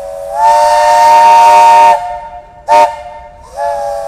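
Multi-chime train whistle sounding a chord of several notes at once: a long blast, a short toot about two and a half seconds in, then another long blast starting near the end.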